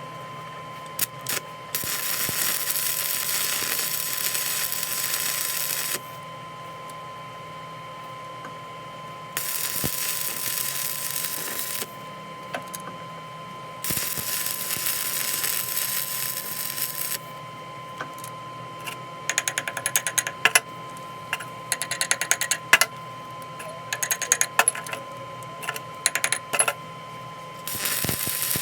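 Metalworking on a shaft: three bursts of steady hissing noise, each a few seconds long, then a run of rapid, irregular metallic clicks and taps, over a steady machine hum.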